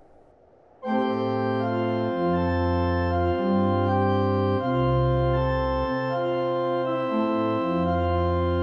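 Closing music of held, organ-like keyboard chords over a bass line that steps to a new note about every second, coming in about a second in and stopping near the end with a short fade.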